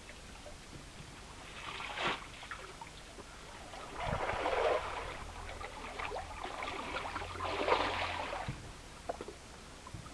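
River water splashing and sloshing in a few bursts, about two, four and seven seconds in, over a faint low hum.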